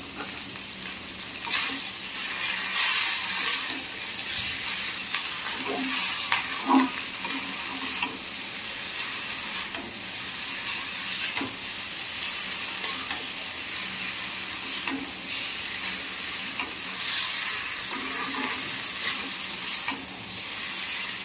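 Chow mein noodles sizzling in a black wok on a gas stove while a steel spatula stirs and tosses them, with irregular scrapes and clatters of the spatula against the pan over a steady frying hiss.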